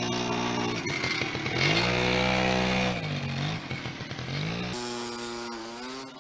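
Small 60cc dirt bike engine revving up and down several times, its pitch rising and falling with each blip, then running steadier and quieter as the bike rides away.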